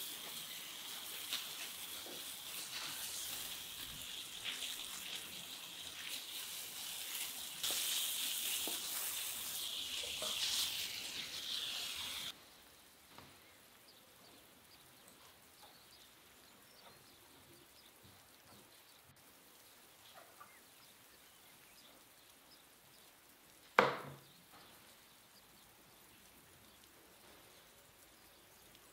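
Water jetting from a garden hose onto a clay tandoor and wet paving: a steady hiss that stops abruptly about twelve seconds in. After that it is quiet, apart from a single sharp knock about 24 seconds in.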